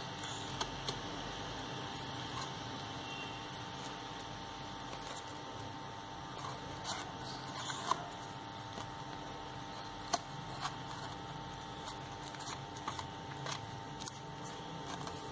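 Floral tape and crepe paper handled by hand while the tape is wound around a wire flower stem: soft rustles and small clicks, scattered and irregular, over a faint steady hum.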